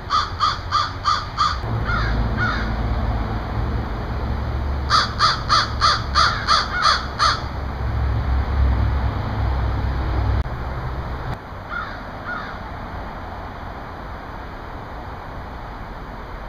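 Crows cawing in quick runs of harsh calls. First comes a run of about six caws and two fainter ones, then a longer run of about nine a few seconds later, then a faint pair. A low rumble sits underneath for most of the first ten seconds.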